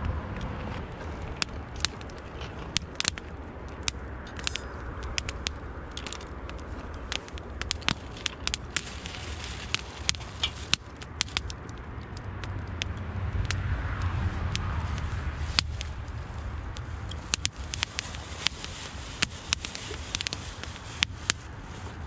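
Wood fire crackling, with frequent sharp pops over a steady low rumble that swells for a few seconds around the middle.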